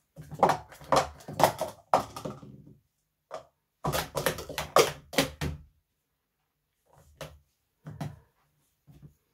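Plastic sport-stacking cups clattering rapidly as a 3-3-3 stack is built up and taken back down at speed. There are two busy runs of cup clicks, with a short pause of about a second between them, ending about five and a half seconds in. A few lighter cup knocks follow near the end.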